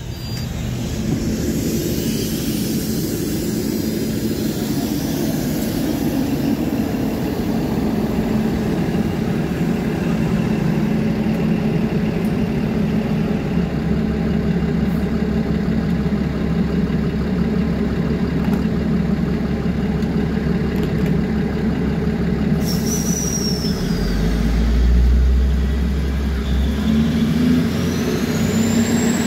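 Diesel railcar's engines running steadily as it stands at a station platform. About 24 seconds in, the engine sound swells and a rising whine joins it as the railcar pulls away.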